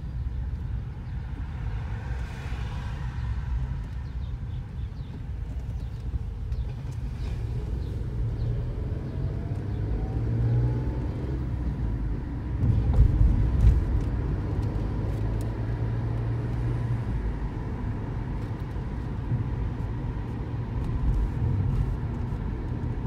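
Car driving, heard from inside the cabin: a steady low rumble that swells louder for a couple of seconds a little after halfway.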